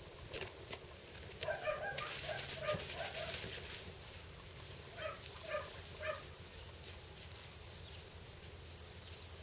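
Five-week-old puppies giving short, high-pitched play yips: a quick run of about seven about a second and a half in, then three more a few seconds later, with a scratchy rustle under the first run.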